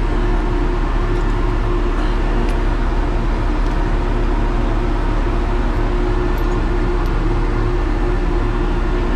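Steady drone of a ship's machinery, with a constant low hum and a held tone that do not change.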